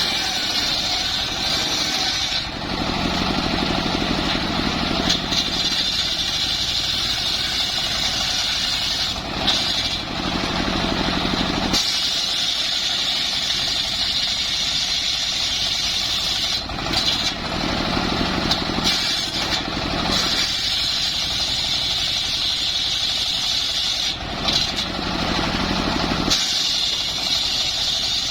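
Powered wood saw running and cutting timber, a continuous loud machine sound whose pitch and loudness shift every few seconds.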